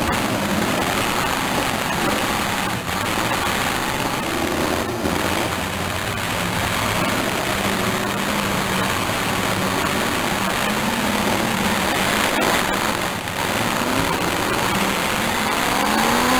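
Demolition derby cars' engines running and revving, with one engine revving up, rising in pitch, near the end.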